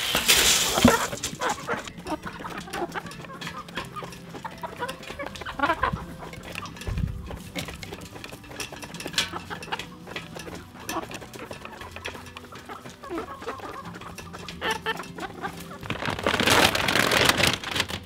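Chickens clucking in a coop, with scattered short calls and scratches. A loud burst of rustling noise comes at the start and again near the end.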